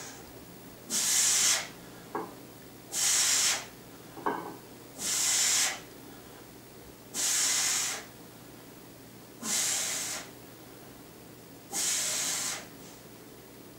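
A man's forceful breathing during a set of heavy barbell bench press reps: six sharp breaths, about two seconds apart, each under a second long, one with each rep.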